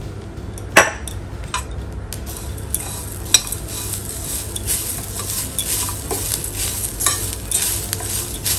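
Steel spoon stirring and scraping dry-roasting coriander seeds, peanuts and grated coconut around a stainless steel pan, with many small clicks. Two sharp metal clinks against the pan stand out, under a second in and again about three and a half seconds in. The scraping starts and keeps going from about two seconds in.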